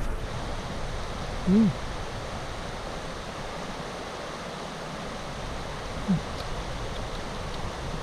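Steady rushing of a mountain stream running over stones. Two short low hums break in, about one and a half seconds in and again about six seconds in.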